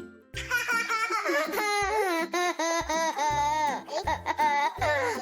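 A baby laughing in repeated high-pitched peals, over background music with a steady bass beat.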